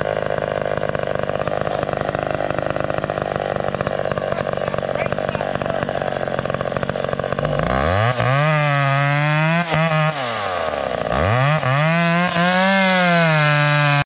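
McCulloch Pro Mac 570 two-stroke chainsaw running at a steady high speed, cutting into the base of a standing tree. About eight seconds in, a louder pitched sound sweeps up, holds high, drops near ten seconds and sweeps up again.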